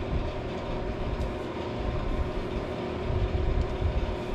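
Monarch 10EE lathe running, a steady machine hum and drone with no knocks or changes.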